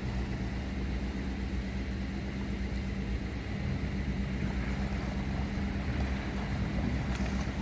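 Outboard motor on a small aluminum jon boat running steadily at low speed.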